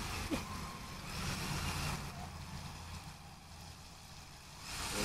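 1/6-scale RC crawler running in pool water: a low, steady motor hum that grows louder about a second in, over a light hiss.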